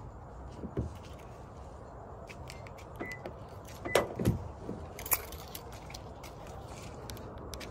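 Toyota Camry key fob handled with light clicks and jingles, then the car's outside door handle pulled, giving a cluster of knocks and clacks about four seconds in and one more click about a second later.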